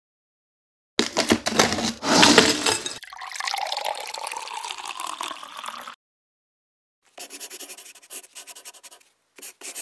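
Logo-animation sound effects: a loud splash and gurgling liquid filling a flask, then runs of quick scratching strokes like a pen writing.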